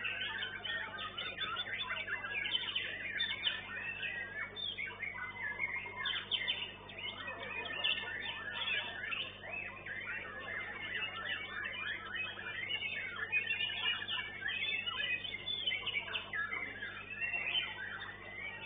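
White-rumped shama (murai batu) singing in a contest cage: a continuous stream of fast, varied whistles and chirps. The CCTV microphone cuts off the highest notes.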